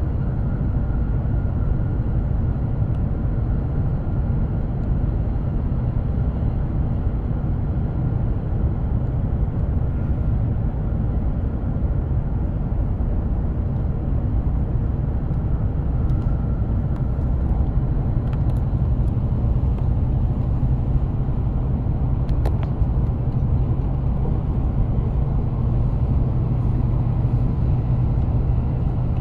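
Steady running noise of an E7-series Shinkansen heard from inside the passenger car: an even low rumble with a faint steady whine above it, and a couple of faint clicks in the second half.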